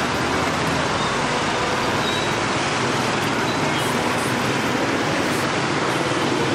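Steady street traffic noise from a moving motorbike in dense scooter traffic: small motorbike engines running close by.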